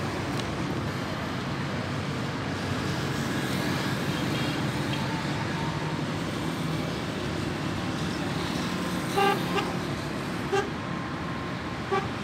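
Steady road traffic of passing cars and motorcycles, with a few short vehicle-horn toots in the last three seconds.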